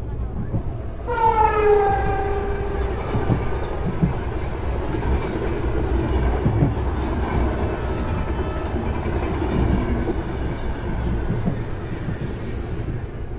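Train horn sounding about a second in, a loud held note that slides down a little in pitch and fades over a few seconds, over the steady rumble and clickety-clack of an Indian Railways train running on the track.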